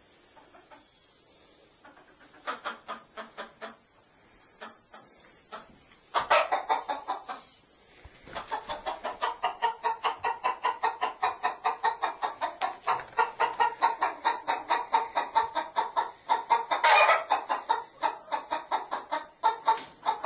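Chickens clucking in a coop: a few scattered clucks at first, then from about eight seconds in a steady, rapid run of clucks, about four a second, with one louder squawk near the end.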